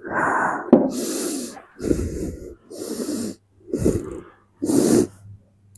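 A woman breathing deeply and forcefully in and out on instruction, about six audible breaths in steady succession.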